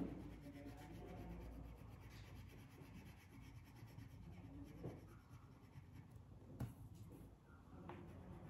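Faint scratching of a crayon rubbed back and forth on paper while colouring in. Two short soft taps break in around the middle.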